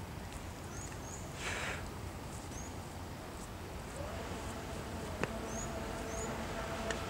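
Open-air ambience with a small bird chirping repeatedly in short, high, rising notes. About four seconds in, a distant electric jet surfboard's motor spins up into a steady whine of several tones that carries on.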